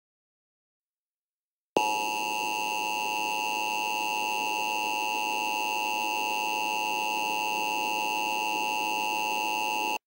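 Emergency Alert System attention signal: a steady two-tone alert tone comes on suddenly about two seconds in and holds without change, announcing an emergency broadcast that is about to follow.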